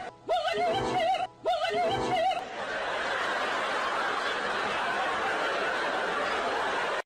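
An added comic sound effect: a short wavering, high-pitched giggle repeated three times in quick succession, then about four and a half seconds of steady crowd laughter like a laugh track, cut off suddenly at the end.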